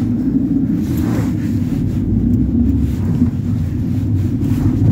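Ford Transit minibus heard from inside the passenger cabin while under way: a steady low drone of engine and road noise.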